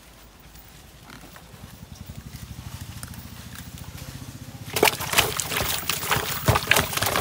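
A large fish thrashing in a plastic basin of water: irregular loud splashes and slaps, beginning about four and a half seconds in. Before that, a low, rapidly pulsing grunt-like rumble.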